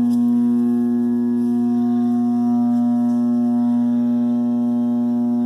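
Furnace making a loud, steady electrical buzz, one low pitch with many overtones that holds unchanged. It is not normal: the owner can't tell if it is the blower motor trying to start and having a tough time starting.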